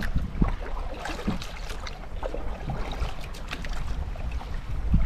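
Small boat on the water: a steady low rumble of wind and water with scattered light knocks and clicks, and one louder thump near the end.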